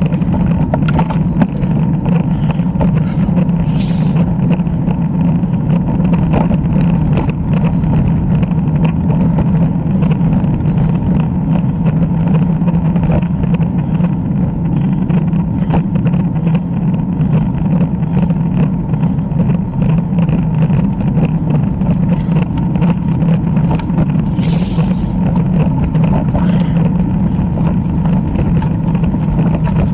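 Steady wind and road noise on the microphone of a camera carried on a moving road bike, with a strong low rumble and two brief hisses, one about four seconds in and one near the end.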